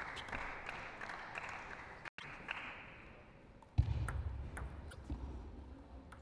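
Celluloid table tennis ball clicking in scattered bounces and hits, over a haze of applause that fades away in the first two seconds. The sound cuts out for an instant about two seconds in. A loud dull thump comes about four seconds in.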